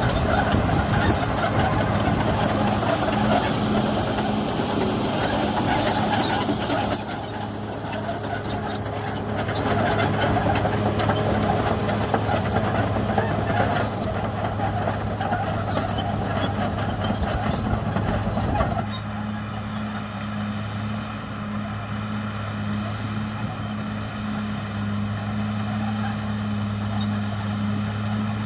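Caterpillar D6R XL bulldozer at work: a steady diesel engine drone with busy clanking and scattered knocks from the machine as it moves. About two-thirds of the way in the clatter stops and the engine runs on alone, a little quieter.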